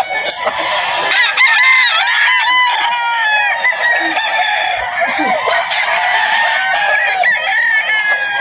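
Many gamecocks crowing at once, their calls overlapping without a break.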